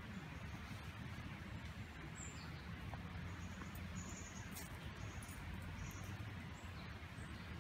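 A few short, high-pitched bird chirps over a steady low rumble and hiss.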